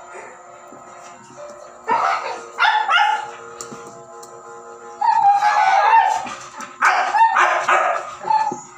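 Siberian husky puppy yipping and whining in a run of short high-pitched cries, with a longer drawn-out whine about five seconds in. A faint steady tone runs underneath.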